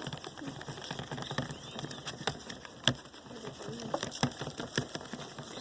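Stirring toothpaste and liquid soap together in a bowl, the utensil clicking and tapping irregularly against the sides, with one sharper knock about three seconds in.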